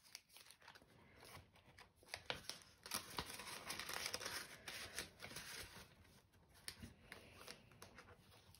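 Faint rustling and crinkling of plastic zip envelopes and banknotes being handled in a ring-binder cash wallet, with scattered light clicks and taps. The rustle is fullest in the middle.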